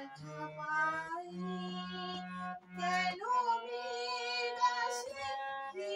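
A woman singing a melody to her own harmonium accompaniment, the reeds holding steady low notes under her voice.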